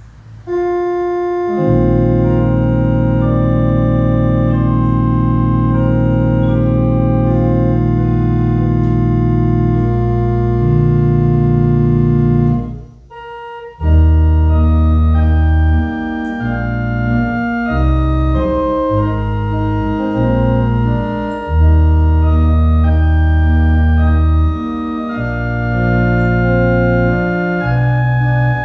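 Organ playing the offertory: long held chords over deep bass notes, breaking off briefly about 13 seconds in, then resuming with chords and bass notes that change more often.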